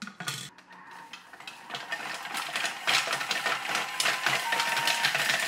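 Thermomix blade grinding lumps of brown sugar into powder at high speed: a dense, loud rattling clatter that builds up over the first few seconds. There is a knock at the start as the lid goes on, and a short beep near the end.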